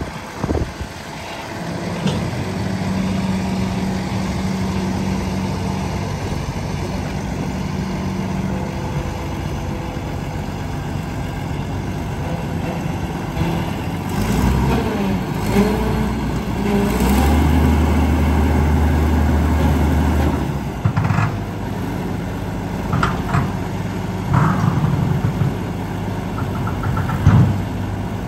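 Sander truck engine running steadily while the rear spreader boom folds up. A deeper, louder hum comes in for about three seconds just past the middle, and a few sharp clanks follow near the end.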